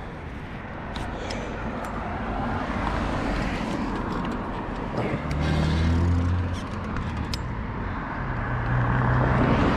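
Motorbike engine running under the rider over a steady wash of wind and road noise, pulling harder about five seconds in and again near the end. The exhaust gasket is blown and an exhaust mount has snapped, so the exhaust is leaking.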